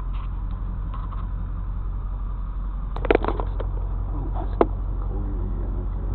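Pickup truck driving on a gravel road, heard from inside the cab as a steady low rumble of engine and tyres. About three seconds in there is a short clattering rattle, and a single sharp knock follows a second and a half later.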